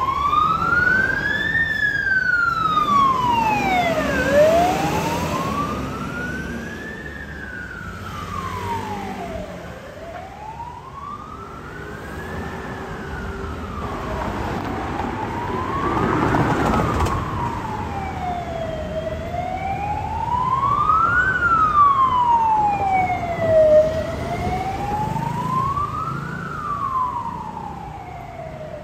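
Fire engine siren wailing, its pitch sweeping slowly up and down about every five seconds.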